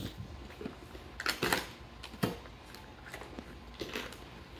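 Scattered scrapes, rustles and clicks of a Chihuahua pawing and biting at a cardboard box to tear it open, with a second dog working a plastic puzzle feeder beside it.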